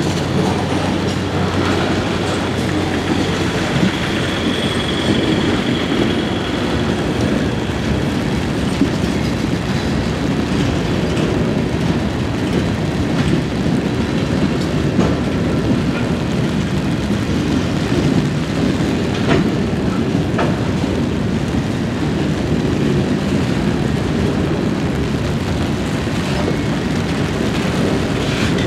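Freight cars rolling past at a grade crossing: a steady rumble and clatter of steel wheels on the rails, with a few sharper knocks.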